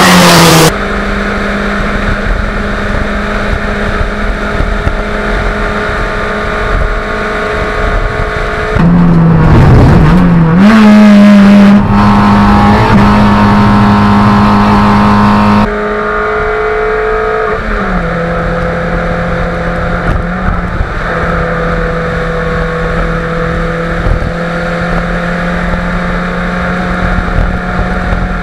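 Fiat Grande Punto race car's engine running hard on track, its note held steady for long stretches and slowly climbing as it accelerates, with a dip in pitch about two-thirds of the way in. The sound jumps suddenly in loudness and tone several times.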